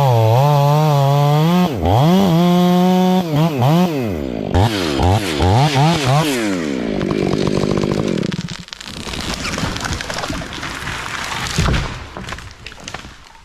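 Two-stroke chainsaw running at high revs, then revved up and down several times before dropping back toward idle about seven seconds in. Quieter clattering follows in the second half.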